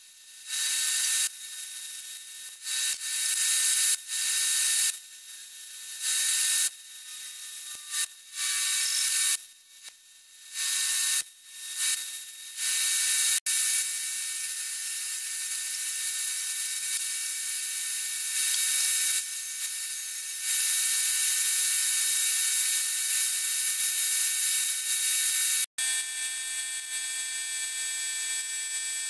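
MIG welder arc crackling in a series of short stop-start bursts, then one long steady bead, as .035 mild-steel wire is laid to weld a cast-iron Dana 44 knuckle to its axle tube. Near the end, after a sudden cut, an angle grinder whines steadily while grinding the weld.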